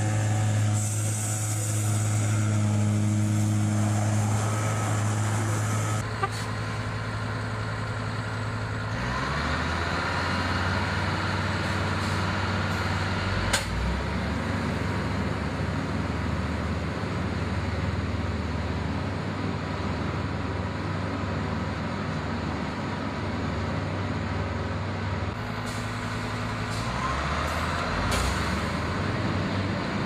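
Heavy truck engine running steadily. About nine seconds in, the sound changes to another truck's engine with a steady hiss as a spray-injection pothole patcher's hand lance blows and sprays the road surface.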